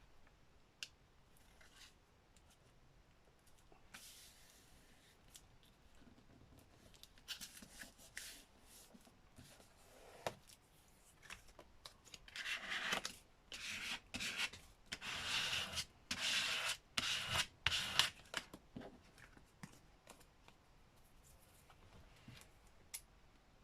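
Paper being rubbed and handled by hand during journal crafting: scattered faint taps and rustles, then a run of scratchy rubbing strokes in the second half.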